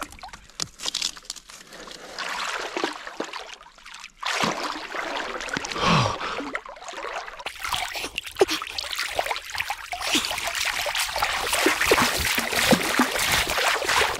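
River water splashing and sloshing around a person wading and swimming in it, with irregular splashes that grow louder and more continuous about halfway through.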